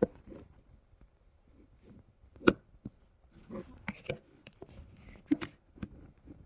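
An irregular series of sharp clicks and knocks in a small room, the loudest about two and a half seconds in, with small clusters of taps later on.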